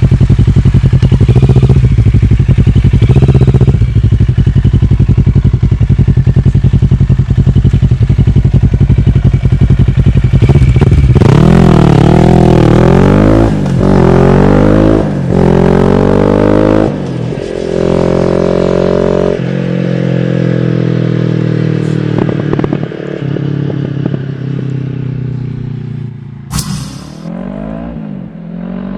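Kawasaki ER-6n's parallel-twin engine through an Akrapovic exhaust with the dB-killer removed, running loud and steady, then revving up and down through several gears. It grows fainter as the motorcycle moves away, with a sharp pop near the end.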